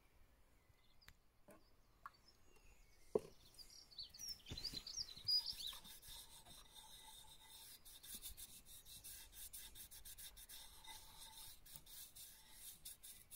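A bare hand rubbing teak oil into a carved sycamore axe handle: a steady scratchy rubbing of palm on wood from about four seconds in, after a few soft knocks. A bird chirps briefly about five seconds in.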